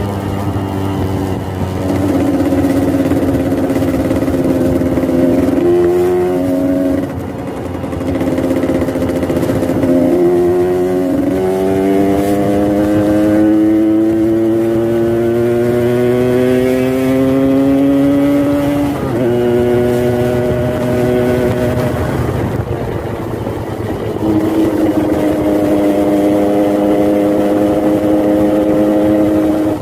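Yamaha RX-King's 135 cc two-stroke single-cylinder engine with an exhaust tuned for a deep snoring ('ngorok') note, revving with its pitch climbing and dropping several times. Around the middle there is one long, steady climb that breaks off with a sudden drop.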